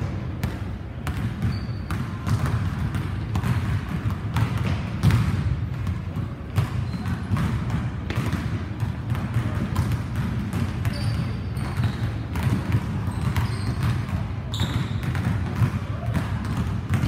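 Basketball bouncing repeatedly on a hardwood gym floor during a dribbling and shooting drill: a string of short, irregular thuds with a steady low hum underneath.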